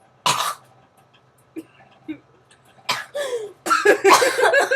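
A person coughing and gagging from the stench of rotting food: one sharp cough just after the start, then another cough and a run of voiced gagging sounds in the last second or so.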